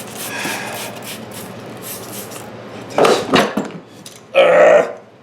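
Metal tire tools and clamp clanking against a small lawn tractor wheel rim during bead breaking: quick rasping strokes, about four a second, then two sharp clanks about three seconds in and a louder metallic clatter near the end.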